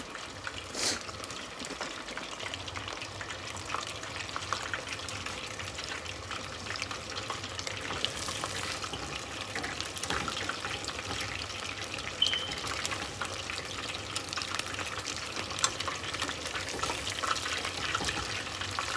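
Beer-battered chicken strips deep-frying in hot oil: a steady sizzle full of small crackles and pops.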